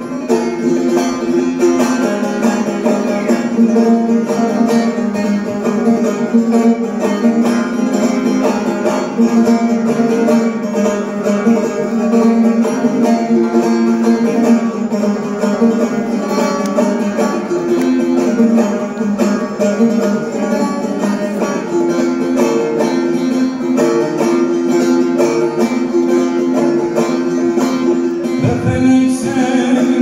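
Bağlama (long-necked Turkish saz) played solo: a plucked folk melody with ringing drone notes sustained underneath.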